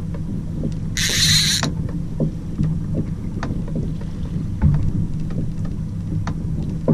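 Fishing reel's drag buzzing for under a second as a hooked fish pulls line off, about a second in. Under it, a boat engine idles with a steady low hum, along with a few small knocks.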